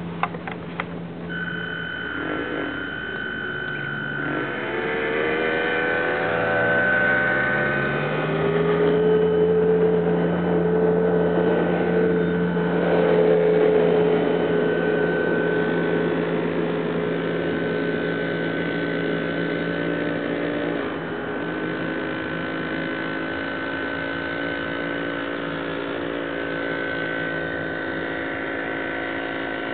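Motor of a radio-controlled scale model Chris-Craft runabout, a whine whose pitch rises as the boat speeds up a few seconds in, then holds fairly steady as it cruises. A few sharp clicks right at the start.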